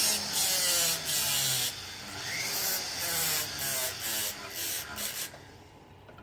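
Small rotary tool's grinding disc grinding down silver solder balls to flat tops, in short passes, its whine dipping and rising as it bites. It stops about five seconds in.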